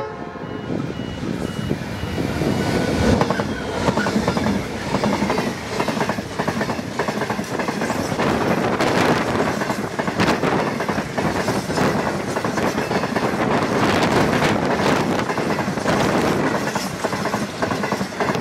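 Freight train passing close by: Pacific National 82 class diesel locomotives 8252 and 8220 come through, followed by a long rake of cement hopper wagons whose wheels clatter and click over the rails.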